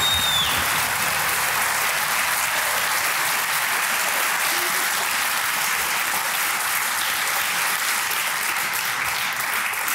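Studio audience applauding steadily, with a short electronic jingle tone fading out in the first half second. The applause marks a correctly answered quiz question.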